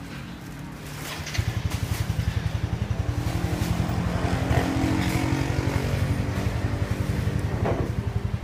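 Small motorcycle engine running close by, a steady rapid low putter that comes in abruptly about a second and a half in.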